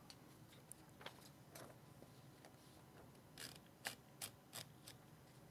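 Faint, sparse mechanical clicks from a Hermes 3000 typewriter being handled while its ribbon is fitted. A few light ticks come first, then a run of about five sharper clicks a little over halfway in.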